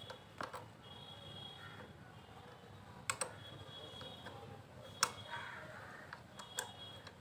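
A few sharp, faint metallic clicks of a hand tool on the motorcycle front brake caliper's bleed valve nut as it is tightened, coming singly and in pairs a second or two apart.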